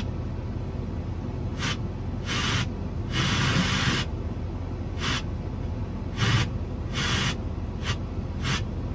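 Short, irregular bursts of static hiss from the truck's radio as it comes on and tunes, heard over the low steady hum of the idling Duramax diesel.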